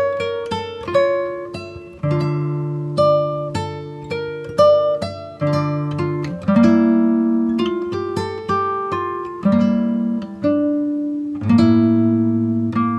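Background music: an instrumental piece of plucked acoustic guitar, single notes picked in a steady flowing pattern over bass notes that change every second or two.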